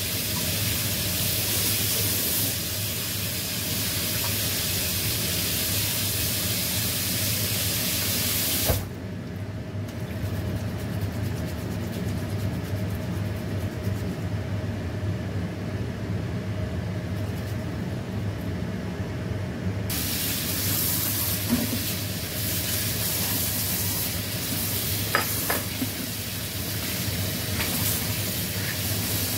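Tap water running and splashing into a plastic colander as food is rinsed by hand. The flow cuts off with a click about nine seconds in and comes back about twenty seconds in, over a steady low hum.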